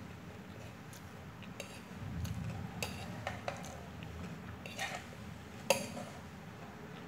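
A metal fork clinking and scraping against a plate as noodles are gathered up: a handful of separate sharp clinks, the loudest a little over two-thirds of the way through.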